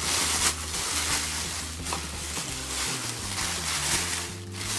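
Plastic wrapping rustling and crinkling as it is pulled off, over background music.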